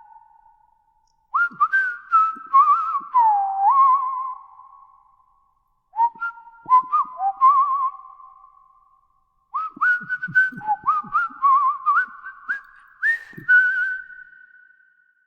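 High whistled notes in three phrases, each opening with upward-sliding tones that then hold and warble in quick trills, several pitches overlapping, with small clicks where the notes start.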